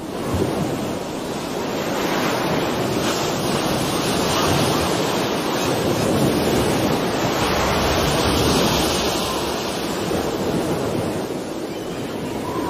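Heavy sea surf breaking and a strong wind blowing, a dense, steady rush that swells and eases slowly.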